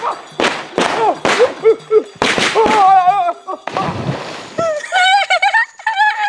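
Firecrackers bang several times in the first couple of seconds amid shouting. A man then plunges into a pond with a splash about four seconds in, followed by a wavering, wobbling yell.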